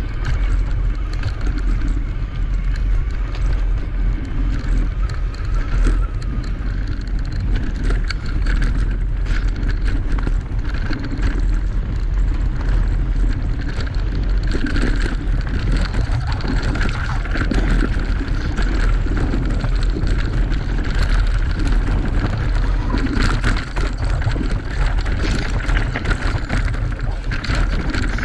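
Electric mountain bike ridden fast down a dirt singletrack: wind buffeting the microphone, with tyres crunching over the ground and the bike rattling over bumps throughout.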